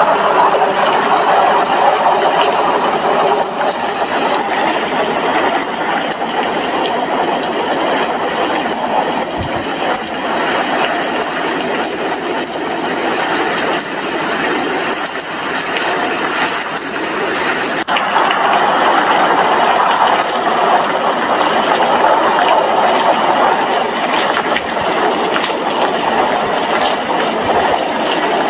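Rain falling steadily outside an apartment window, a dense, even hiss with no pauses.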